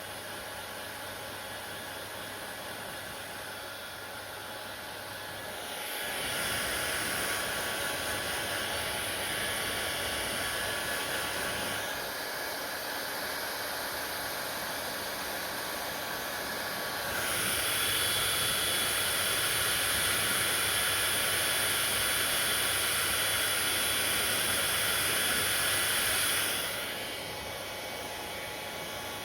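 Hand-held hair dryer blowing steadily, getting louder about six seconds in and louder again past the middle, then dropping back near the end.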